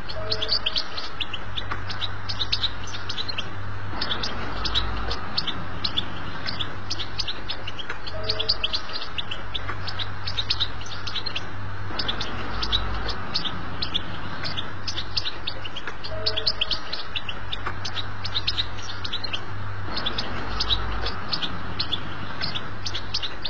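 European goldfinch singing a fast, continuous twittering 'betbta' song, the chattering song played to tutor young goldfinches. A steady low hum runs underneath.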